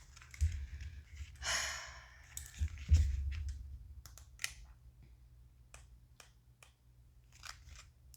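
Tabletop handling noise: two low bumps, a short swish, and scattered light clicks, as of cards and a guidebook being handled.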